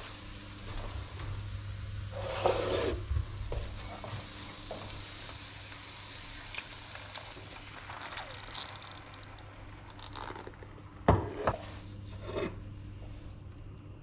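Sliced onions sizzling in a hot frying pan, the sizzle thinning out as cream is poured over them. Short clatters of utensils against the pan, the loudest a sharp knock about eleven seconds in.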